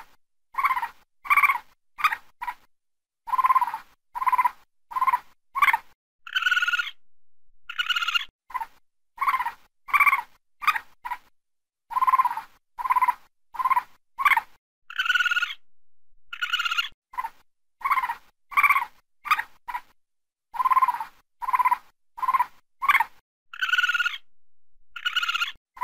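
A series of short, high animal calls, one or two a second, with silent gaps between them. A longer, shriller call comes in every couple of seconds, and the same sequence repeats over and over like a loop.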